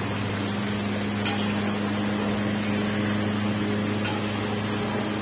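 A steady low electric hum, with a few light clicks of a metal ladle against an aluminium pan as a pot on a gas stove is stirred.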